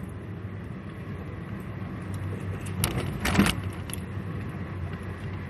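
Steady engine and road hum inside a car's cabin, with a brief cluster of clicks and rattles about three seconds in.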